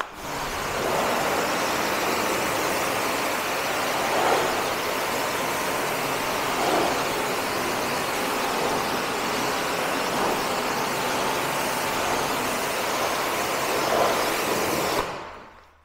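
Pressure washer spraying a steady jet of water onto a car door, rinsing off the pre-wash. It starts at once and dies away about a second before the end.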